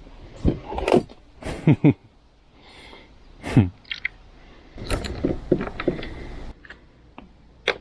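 Irregular metallic clanks, knocks and rattles from tools and mower parts being handled during disassembly, several sharp strikes, some with a short ringing tail.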